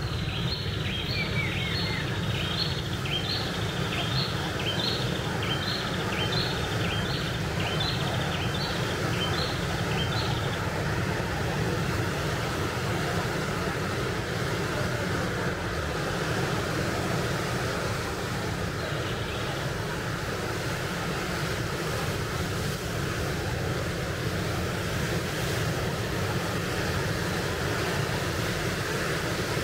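Steady wash of ocean surf breaking on the shore. Over the first ten seconds a series of short high-pitched chirps repeats about one and a half times a second, then stops.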